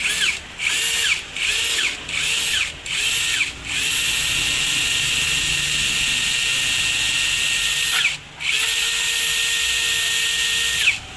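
DeWalt cordless drill-driver run with no load: the trigger is squeezed in about five quick bursts, each spinning up and winding down, then held for a long steady whine, released briefly once, and held again.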